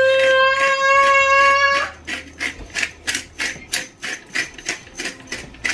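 A toddler cries in one long, steady wail that breaks off about two seconds in. A spice mill then grinds in quick rasping strokes, about three or four a second.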